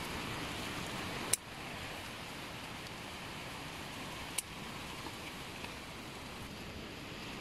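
Steady rush of typhoon wind through the garden plants and over the microphone, with leaves rustling. Two brief sharp clicks break it, about a second and a half in and again about three seconds later.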